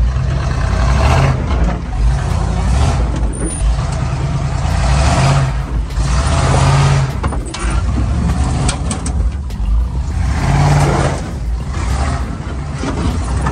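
Early Ford Bronco's engine running at low speed as it crawls over a rough dirt trail in four-wheel drive with its hubs locked. The engine hum is steady, with swells of hissing noise every second or two and scattered short knocks and rattles over the bumps.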